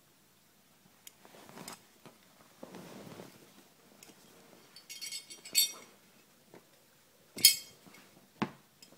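Soft rustling and handling noises, then the metal belt buckle clinking sharply several times, the loudest clink about seven and a half seconds in.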